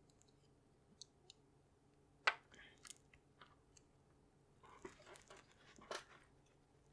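Scattered small clicks and short scraping rustles from fingers handling and pressing the parts of an iPod Nano during a display replacement. A single sharp click about two seconds in is the loudest, with a cluster of clicks and rustles near the end.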